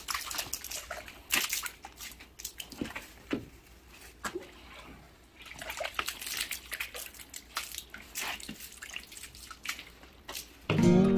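Green plastic broom scrubbing and sweeping a wet concrete threshold in irregular strokes, with water poured from a dipper splashing and dripping on the floor. Music comes in loudly just before the end.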